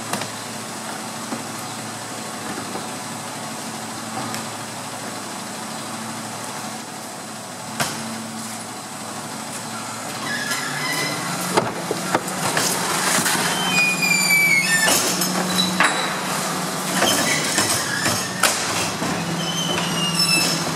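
Rear-loading garbage truck's engine running steadily; about halfway in it speeds up to drive the hydraulics, and the bin lifter and a plastic wheelie bin clank and knock, with a few short high squeaks.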